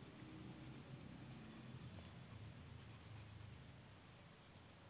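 Faint scratching of a colored pencil shading on a coloring-book page in quick repeated strokes.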